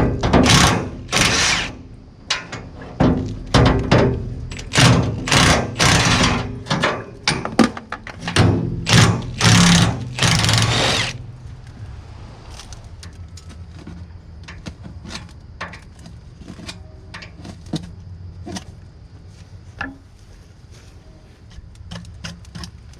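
Rough scraping and rustling as a mouse nest is pulled out of the roof of a skid steer cab, in a run of loud, irregular strokes for about the first eleven seconds. After that there are only scattered small clicks and light handling noises.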